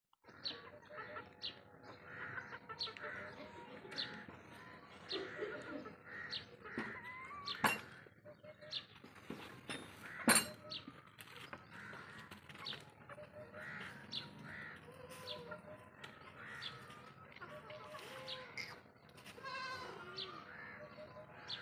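Farmyard animal sounds: birds chirping and calling throughout, with a goat bleating with a quaver near the end. Two sharp knocks come partway through.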